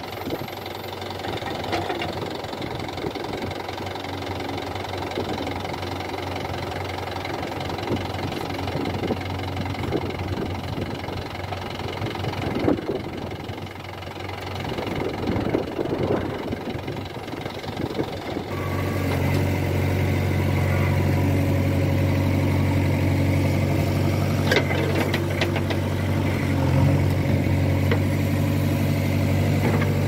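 Diesel engines of a JCB 3DX backhoe loader and a tractor running steadily while the backhoe digs and loads soil, with a few sharp knocks. A little past halfway the backhoe's engine hum becomes louder and steadier.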